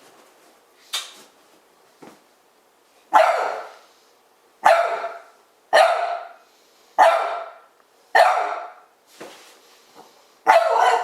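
Dog barking in play: a string of about six loud barks roughly a second apart, with a few softer, shorter barks in between.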